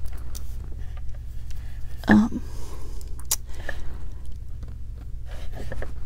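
Small clicks and taps of a one-step looper plier and wire head pins being handled, over a low steady hum; a brief voiced 'mm' about two seconds in.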